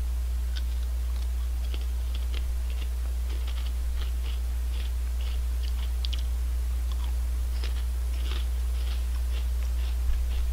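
Crunching and chewing of Honey Tong Tong potato chips: a scattered run of short, crisp crunches. A steady low hum lies underneath.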